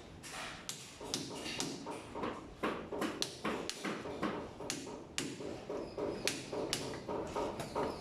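Irregular series of sharp taps and knocks, several a second, from hand-tool work on a plumbing repair.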